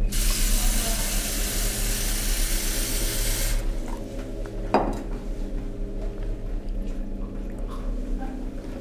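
Water running from a lab tap into a sink, shut off after about three and a half seconds, followed by a single clink of glassware.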